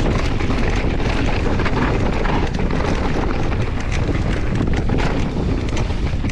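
Mountain bike riding down a rough trail: heavy wind noise on the microphone over the rumble of tyres on dirt, with frequent small knocks and rattles from the bike.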